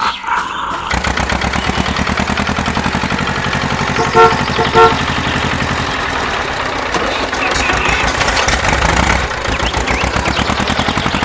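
Small vehicle engine running with a rapid, steady chug, and two short horn beeps about four seconds in.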